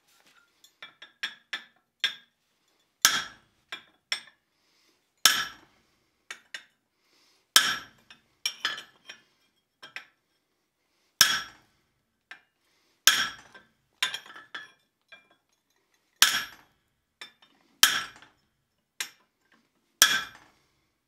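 Hand hammer striking a flatter held on a steel rivet head, with the work on the anvil: sharp ringing metallic clinks, about nine heavy blows irregularly spaced a second or two apart with lighter taps between. The blows flatten the rivet head to take out ball-peen hammer marks.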